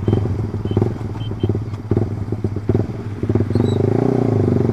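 Suzuki GSX single-cylinder motorcycle engine through a short Proliner aftermarket exhaust, off the throttle as the bike slows, with uneven crackling and popping from the exhaust. About three and a half seconds in, it settles into a steadier low-revving note.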